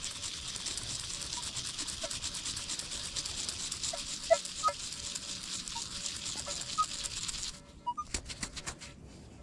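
A small dug coin being scrubbed clean in quick, steady strokes, rubbing off dirt to show its design. The scrubbing stops about three-quarters of the way in, followed by a few short separate scrapes.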